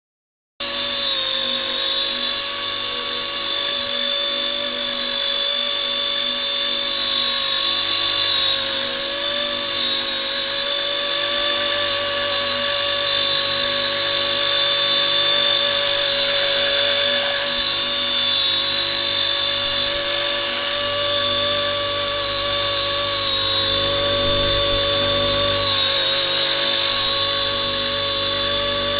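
RC ERA C190 electric scale helicopter hovering: a steady high-pitched motor and rotor whine that starts suddenly about half a second in and holds a nearly constant pitch, wavering only slightly.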